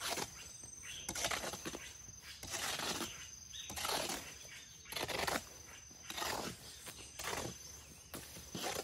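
A hoe scraping and chopping through a pile of sand-and-cement mortar, mixing it by hand: a rough scrape roughly once a second.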